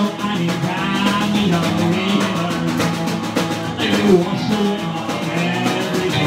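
Rockabilly band playing live: strummed acoustic guitar, hollow-body electric guitar and drum kit.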